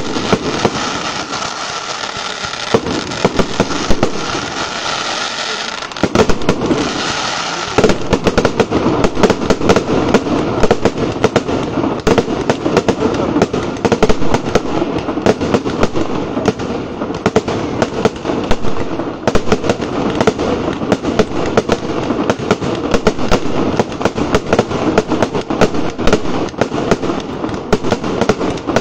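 A fireworks display: a continuous run of bangs and crackles from aerial shells and ground fountains. A hissing with scattered cracks gives way, about eight seconds in, to a faster and denser crackling.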